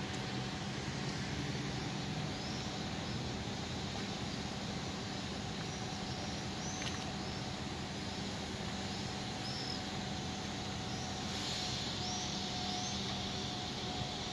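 Steady low hum of a river cruise ship's machinery with a thin steady tone, heard from on board. Small birds chirp over it again and again, most densely near the end.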